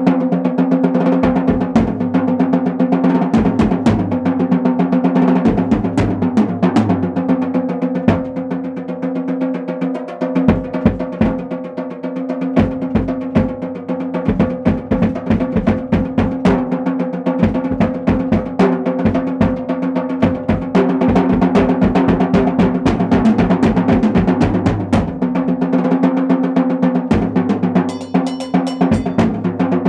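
Drum kit solo: fast, continuous strokes on the snare and toms with frequent bass drum kicks.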